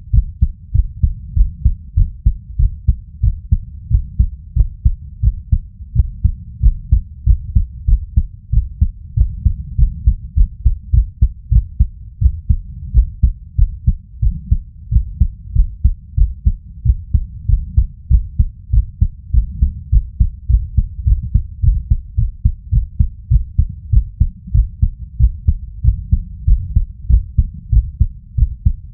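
A man's heartbeat heard through a Stemoscope digital stethoscope filtered to 70–200 Hz: a steady, regular run of deep, low thumps with nothing higher-pitched. It is the heart of someone lying down and feeling anxious.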